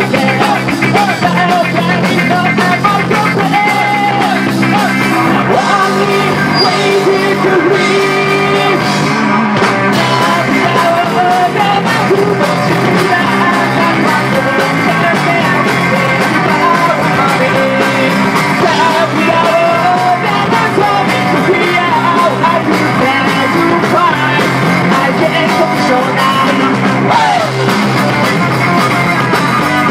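A live rock band playing loud, with electric guitar, bass guitar and drums, and a male lead singer singing into the microphone.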